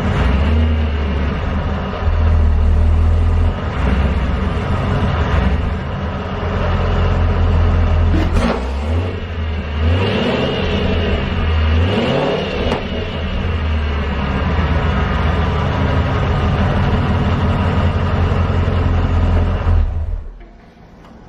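Supercharged Chevrolet Camaro SS 6.2-litre V8 with long-tube headers running on fresh exhaust work, mostly idling, with throttle blips about eight seconds in and again around ten to twelve seconds, then shut off near the end. A header tick is noticeable, and the exhaust leaks slightly at the X-pipe joint.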